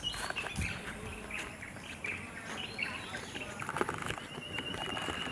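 Outdoor ambience of birds chirping and insects buzzing, with a thin steady high note starting about four seconds in.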